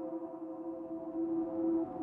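Ambient background music: a steady drone of several held tones, swelling slightly near the end.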